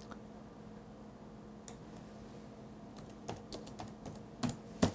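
Computer keyboard typing: a lone keystroke, then a quick run of key clicks in the last two seconds, over a faint steady hum.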